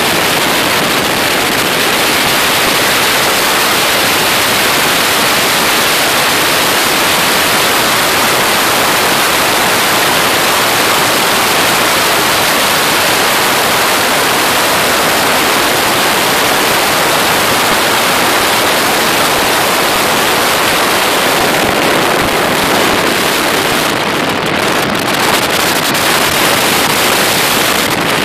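Loud, steady rush of wind against the microphone at an open car window, mixed with the car's tyre and road noise at speed inside a road tunnel.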